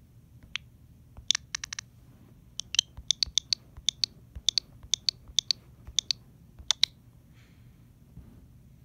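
A quick, irregular run of about two dozen sharp clicks in small clusters, like typing or tapping, stopping about seven seconds in.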